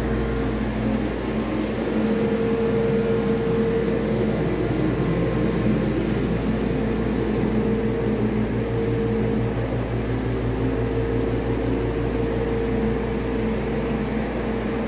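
2015 Cummins ISX15 inline-six diesel engine running at a steady speed during a test run: an even mechanical hum with a steady tone held over it, no revving.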